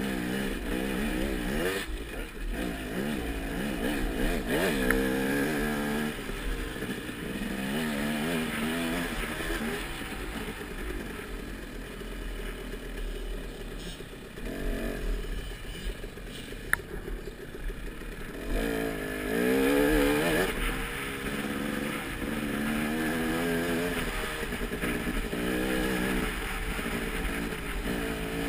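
Off-road motorcycle engine revving up and down in repeated surges, its pitch rising and falling as it is ridden through the gears, with one sharp click a little past halfway.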